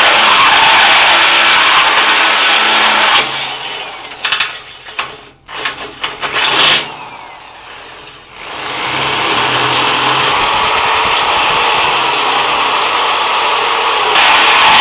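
Milwaukee cordless drill boring vent holes through the sheet-steel wall of a burn barrel, the motor running steadily under load. About three seconds in it stops for several seconds with a few short knocks and clanks, then drills steadily again.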